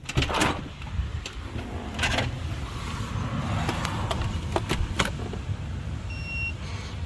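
Door and digital keypad deadbolt being handled, with several sharp clicks and knocks over a low rumble of handling noise, then one short electronic beep from the keypad about six seconds in.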